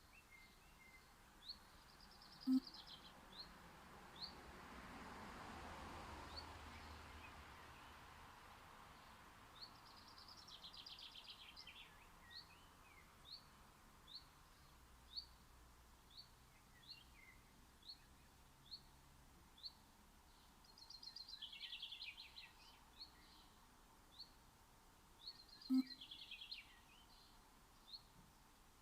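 Garden birdsong: one bird repeating a single short, high chirp about once a second, while another bird sings brief warbling phrases four times. A faint swell of rushing noise rises and fades a few seconds in.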